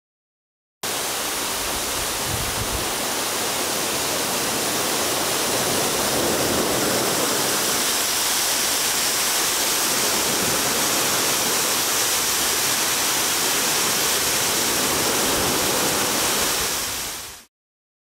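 Steady rush of a waterfall's falling water, starting abruptly about a second in and fading out near the end.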